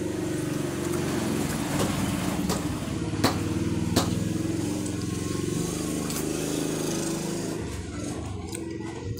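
An engine running steadily, with a couple of sharp clicks about three and four seconds in. The engine dies away near the end.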